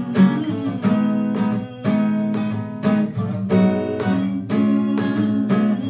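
Acoustic guitar strummed in a steady rhythm, about three strokes a second, with the chords changing, as an instrumental passage between sung lines.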